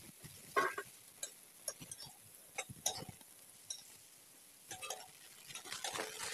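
Metal spatula clinking and scraping against a kadai while turning egg pakoras frying in oil: scattered light knocks and clinks.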